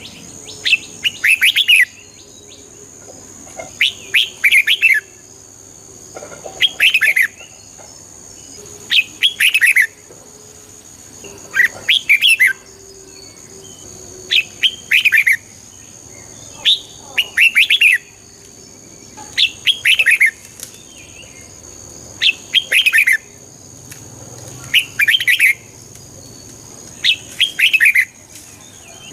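Red-whiskered bulbul singing short, quick warbled phrases, one every two to three seconds, over a steady faint high tone.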